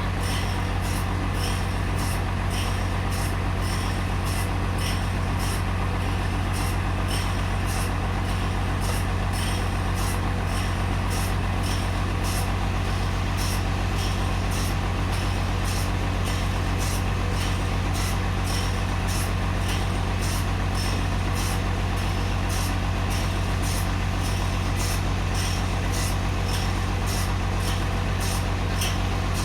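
Sawmill machinery running steadily: a deep engine hum with a regular high tick about twice a second.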